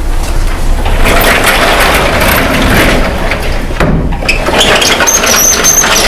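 Vertical sliding whiteboard panels pushed along their tracks: a long rumbling scrape, then a second scrape that ends in high squeaks near the end.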